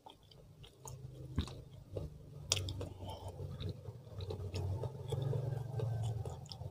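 Close-miked chewing of grilled chicken and rice, with small wet mouth clicks throughout. Two sharp crisp snaps stand out about one and a half and two and a half seconds in.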